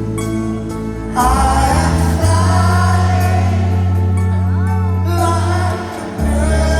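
Live band playing a slow rock ballad with sung vocals over long held bass notes, which shift to a new note a few times.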